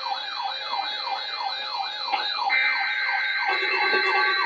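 Electronic alert siren from a weather radio receiver, a wailing tone that sweeps up and drops back about twice a second over a steady buzz. About halfway through, a steady high tone comes in and covers the sweeps.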